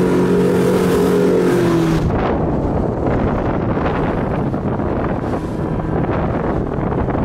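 A 90 hp motorboat engine running steadily at cruising speed, with one tone sliding down near the two-second mark. From about two seconds in, the engine's tone is masked by a rough rush of wind on the microphone and water against the hull.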